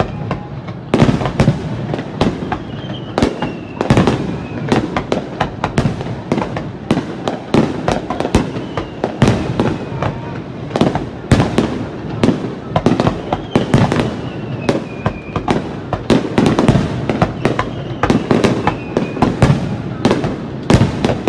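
Aerial firework shells bursting in a rapid, continuous barrage: loud bangs several times a second with crackle between them. A faint falling whistle rises above it now and then.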